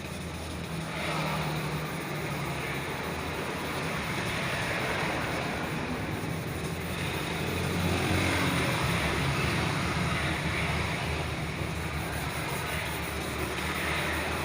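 Sanding of a plastic car headlamp lens: a coarse rubbing hiss that swells and fades every few seconds, over a steady low hum.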